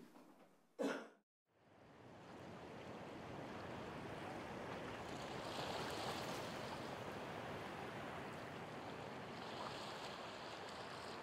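Steady rushing of water from an outdoor field recording. It fades in after a moment's silence near the start and swells slightly about halfway through.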